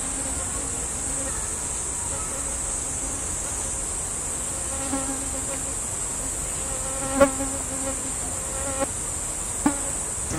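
Steady high-pitched insect chorus in the forest, with a few short low buzzes of a flying insect in the second half, the loudest about seven seconds in.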